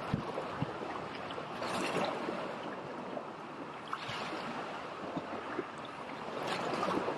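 Sea water washing and lapping against shoreline rocks, with wind on the microphone and a few light ticks scattered through it.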